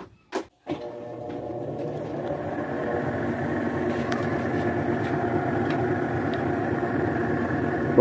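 Esmaltec washing machine's motor driving the basket in the spin cycle after a couple of clicks at the start. The steady hum grows louder over the first few seconds as the basket gets up to speed, then holds. It is spinning now that the repaired actuator locks the basket.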